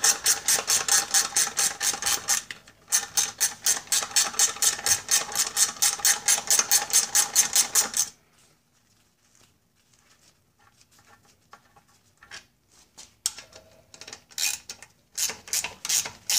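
Ratcheting speed wrench clicking quickly and evenly, about six clicks a second, as bolts are run out. It pauses briefly, stops about halfway through with only a few faint ticks after, and starts clicking again near the end.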